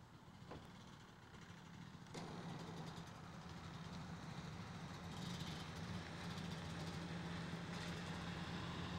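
Dirt bike engine running at a steady pitch, coming in abruptly about two seconds in and getting gradually louder as the bike approaches.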